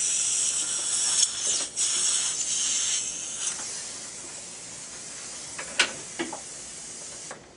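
Steady high-pitched hiss of a dental suction line, which drops off about three seconds in, followed by a couple of light clicks about six seconds in.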